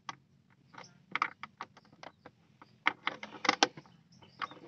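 A thin metal decoding pick worked inside a Honda Revo Fit's ignition lock cylinder: irregular small metallic clicks and scrapes, bunched in quick flurries about a second in and again around three and a half seconds in, as the lock's wafers are probed to read the key code without taking the lock apart.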